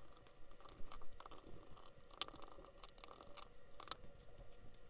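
Faint, rapid clicks and taps of a screwdriver working the Torx screws and the plastic housing of a cordless drill being taken apart, sped up.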